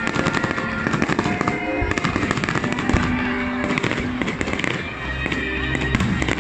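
Aerial fireworks bursting and crackling, many sharp pops in quick succession, over music playing.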